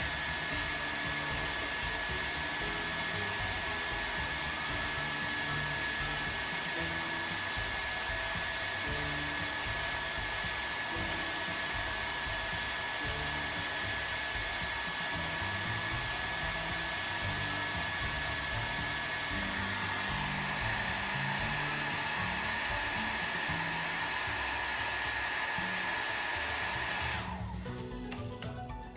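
An electric fan or blower running steadily: a rushing of air with a thin, steady high whine, under background music. The blower sound cuts off suddenly near the end, leaving the music.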